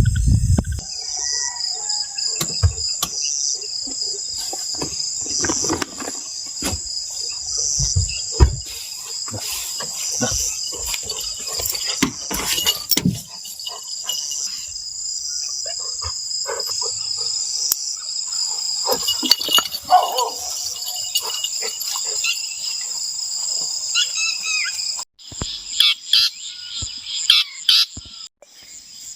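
Night insects trilling in a steady high-pitched chorus that pulses about once a second, with scattered clicks and knocks. The chorus cuts out abruptly about 25 seconds in, leaving only sharper clicks.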